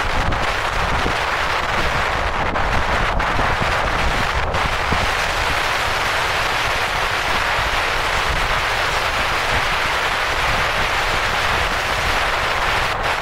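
Wind buffeting the microphone over steady road and tyre noise from a car driving at speed, with a rough, uneven low rumble.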